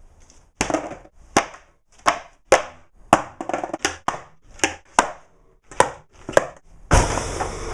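About eleven sharp whacks struck one after another, roughly two a second, as items are hit to imitate a hockey stick striking a person for a foley effect. About seven seconds in a loud, continuous rushing noise sets in.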